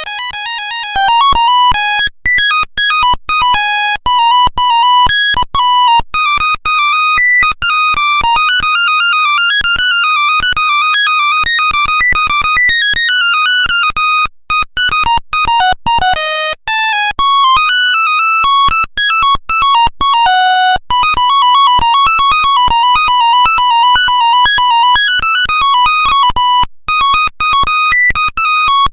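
Nokia 1100 monophonic ringtone: a fast single-line melody of high electronic beeps, each note starting abruptly.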